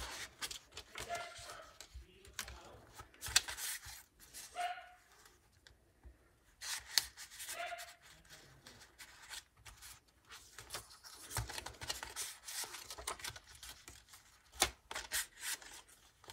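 A dog barking in the background, a few short barks in the first eight seconds, over the rustle and rub of paper and fabric journal pages being handled and turned.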